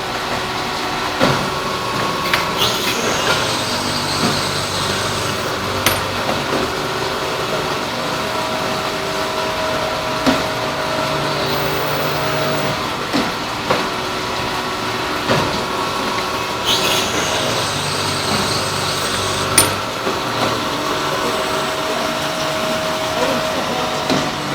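Industrial machine running with a steady hum and whine, with sharp clicks and knocks in a work cycle that repeats about every 14 seconds.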